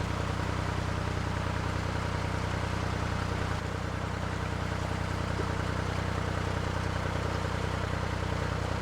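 Narrowboat's inboard diesel engine running steadily at cruising speed, a constant low hum.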